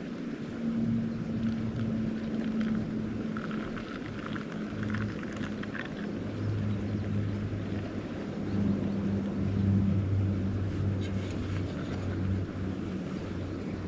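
Strong wind rushing steadily across the camp, with a low wavering hum rising and falling under it.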